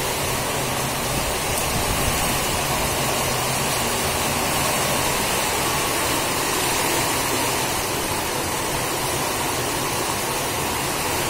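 Heavy rain pouring steadily, a dense, even rush of noise with no let-up.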